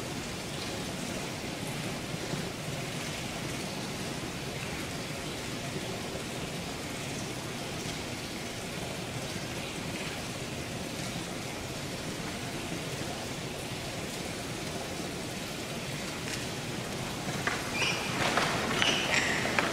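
A steady, even hiss of room noise. Music starts to come in near the end.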